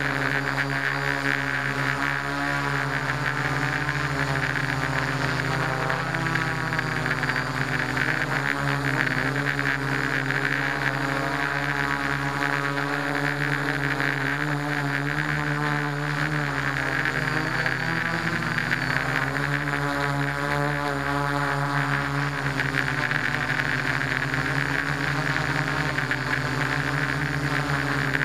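Multirotor drone's electric motors and propellers whirring, heard close from the camera on the drone itself; the pitch holds steady and then wavers up and down several times as the throttle changes.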